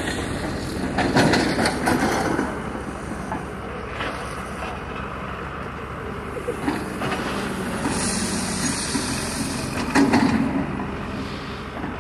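Hydraulic excavators' diesel engines running steadily while their buckets work the track ballast, with clanks and knocks just over a second in and again about ten seconds in, and a spell of hiss from about eight to ten seconds.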